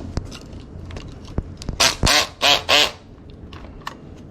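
Light metallic clicking of lock picks working in a door lock's pin tumblers. Near the middle this is broken by four loud, harsh, quack-like bird calls in quick succession.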